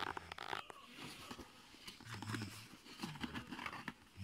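Rustling and scraping of a nylon telescope accessory bag as a hand rummages in its zipped compartment among the books inside, with scattered small clicks and crinkles.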